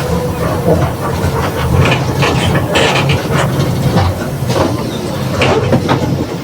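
Mercedes-Benz OF 1721 city bus running: a low engine drone under frequent rattles and knocks from the body and fittings.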